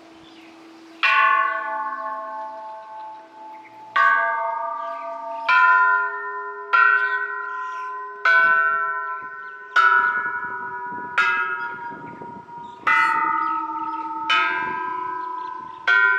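Buddhist temple bells struck by hand one after another, about ten strikes roughly every second and a half. Each bell rings on and overlaps the next, and the bells differ in pitch.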